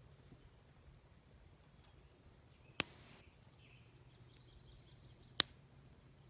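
Two sharp pops, about two and a half seconds apart, from a small wood campfire with bacon cooking over it; the second pop is the louder.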